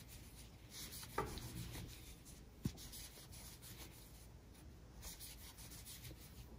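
Faint rubbing and rustling of acrylic yarn as a crochet hook works single crochet stitches, with a short soft click about two and a half seconds in.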